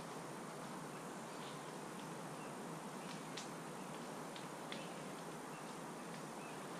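Quiet outdoor ambience: a steady hiss with a few faint, short high chirps scattered through it.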